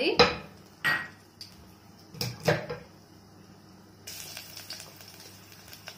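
Garlic cloves frying in hot oil in a steel bowl, with a few sharp knocks in the first half. About four seconds in, another clove is dropped in and a steady sizzle starts.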